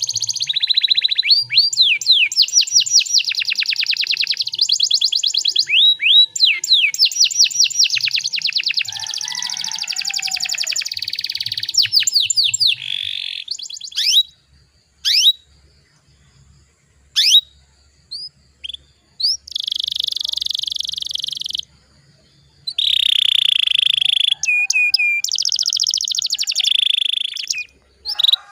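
Domestic canary singing: fast rolling trills and chattering phrases, then a stretch of single quick sweeping notes with short silences between them, before long rapid trills come back near the end.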